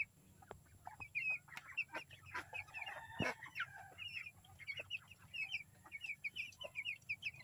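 A flock of 11-day-old broiler chicks peeping: many short, high chirps overlapping and repeating, with faint clicks among them.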